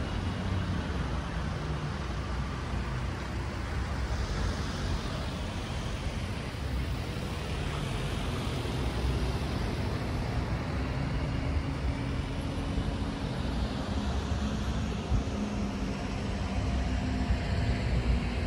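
Street traffic: vehicles passing with a continuous low rumble, one passing by about four seconds in, and a steady low engine hum through the second half.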